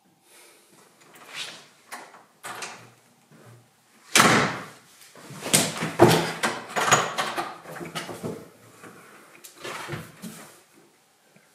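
Front door handle and latch clicking, then the door slamming shut about four seconds in, followed by a quick run of knocks and thumps against the door.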